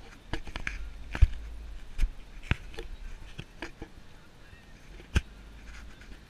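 Car driving slowly on a city street heard from inside the cabin: a low steady rumble with irregular sharp knocks and rattles, the loudest about a second in, twice around two seconds and once about five seconds in.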